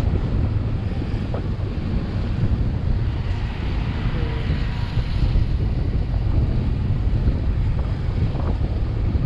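Wind rumbling and buffeting on the microphone over steady road and vehicle noise while travelling along a road. The rumble is loud and even, with no separate events.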